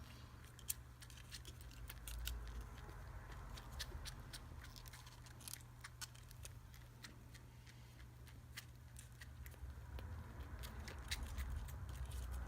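Kitten suckling milk from a feeding bottle: faint, irregular wet clicks and smacks from its mouth on the nipple.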